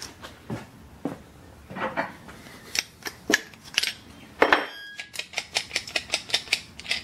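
Small plastic-and-metal clicks and scrapes from a reproduction car seat recliner knob being handled and test-fitted by hand. There is a louder scrape a little past halfway, then a quick, even run of about five clicks a second as the knob is turned.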